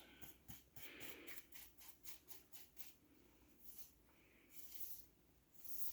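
Faint scratchy strokes of a paintbrush worked back and forth over the painted surface: a quick run of short strokes, then a few longer, softer swishes in the second half.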